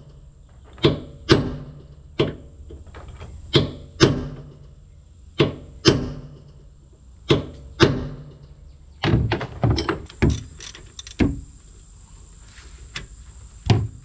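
Hammer blows on a steel bolt set against a stuck gearbox plug on a corn head, striking to jar the tight plug loose. Sharp metallic knocks, mostly in pairs about half a second apart, then a quicker run of knocks and two last single strikes.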